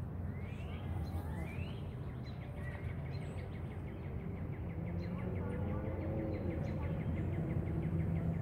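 Songbirds calling outdoors: two quick rising chirps, then a long rapid trill of evenly spaced notes lasting about five seconds, over a steady low background rumble.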